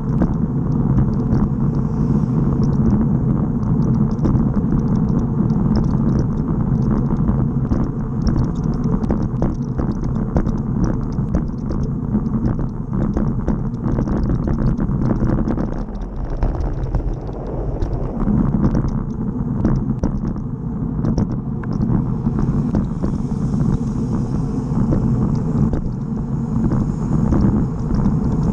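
Wind buffeting the microphone of a camera riding on a road bicycle at speed: a loud, steady low rumble with a fine crackle of small bumps from the rough tarmac. It dips briefly a little past halfway, and a higher hiss joins near the end.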